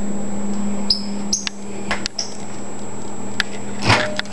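Microwave oven door and turntable being handled as soap is put inside: short clicks and brief high squeaks, then a louder clatter near the end, over a steady electrical hum.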